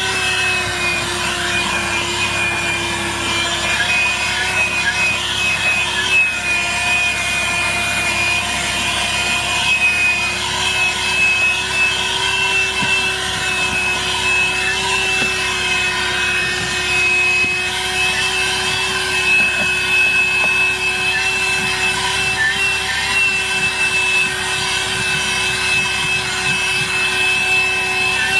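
ThisWorx 12-volt corded handheld car vacuum running steadily, a motor hum with a high whine. Its pitch wavers a little as the airflow through the nozzle changes, with some rubbing noise from the nozzle working over the car's interior.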